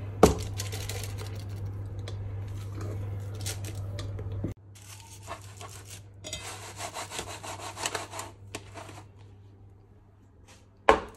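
Aluminium foil rustling and crinkling, in stretches of scratchy, rubbing noise, over a steady low hum that cuts off about four and a half seconds in. There is a sharp knock just after the start and a louder one near the end.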